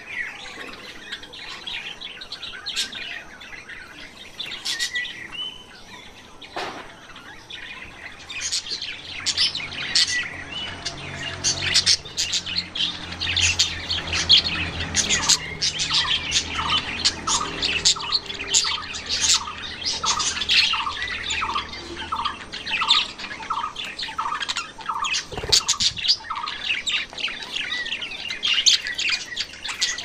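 Small cage finches chirping and calling, a few chirps at first, then many dense, rapid high chirps from about eight seconds in. Through the middle runs a string of evenly repeated lower notes.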